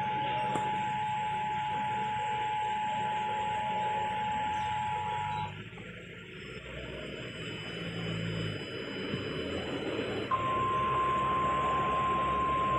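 Emergency Alert System two-tone attention signal, two steady tones sounding together over a radio hiss, cutting off about five and a half seconds in. After a few seconds of hiss, a single slightly higher steady alert tone, the NOAA Weather Radio warning tone, starts about ten seconds in and holds.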